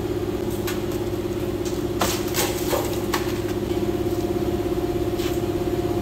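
Rusted sheet-metal pieces of an old truck cab corner knocking and clattering onto a concrete floor, in a cluster of knocks about two seconds in and a few single knocks after, over a steady mechanical hum.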